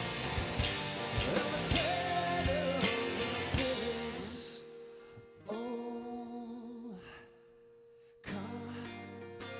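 Live rock band with acoustic and electric guitars, drums and lead vocals playing a song. About halfway through it thins out to a single held note, then drops to a brief near-silent gap before music starts again near the end.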